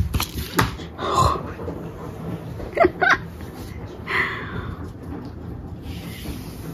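A cat playing with a toy on a hard laminate floor: scattered taps and knocks, with two short squeaky chirps close together about three seconds in.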